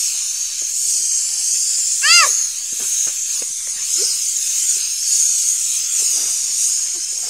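Compressed air hissing steadily from the hose nozzle of a portable air tank, with a brief high-pitched cry about two seconds in.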